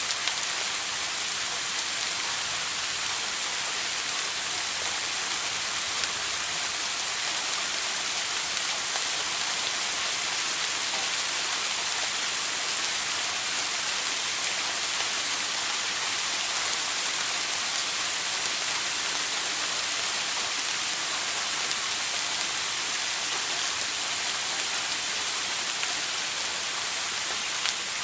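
Shower running: water spraying down in a steady, dense hiss that does not change.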